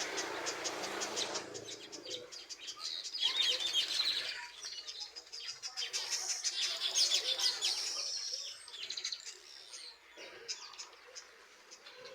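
Weaver birds at a nesting colony chattering, with many rapid overlapping chirps. The chatter is busiest a few seconds in and again around the middle, then thins out near the end.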